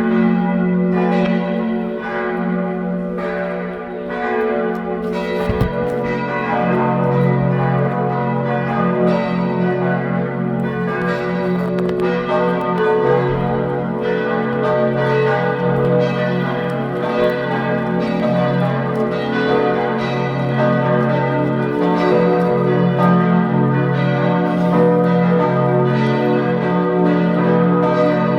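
Several church bells ringing together in a full peal, their strokes overlapping continuously; a deeper bell joins about six seconds in. The peal announces the start of a confirmation service.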